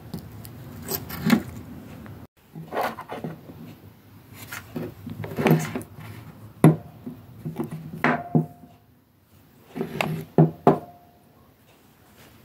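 Salvaged cylindrical battery cells handled on a wooden tabletop: irregular knocks and clicks as the metal cells are set down and stood upright, two of them with a brief ring, and rubbing and scraping between.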